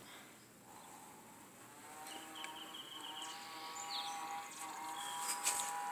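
Faint outdoor background: a steady two-tone hum, with a short rapid chirping trill about two seconds in and a brief higher chirp a little later.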